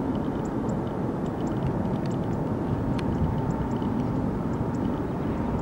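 Steady low rumble of a Boeing 737-800's jet engines heard from beyond the airport fence, with faint short high chirps over it.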